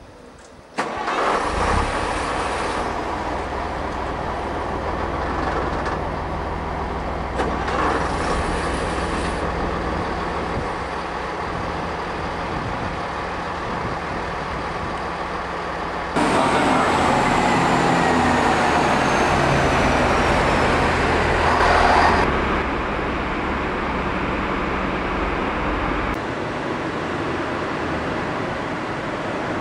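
Diesel engines of Class 121 'bubble car' railcars running, heard close to the exhaust stack, starting suddenly about a second in. About halfway through they get louder for several seconds with a whine falling in pitch, then ease back to a steady run.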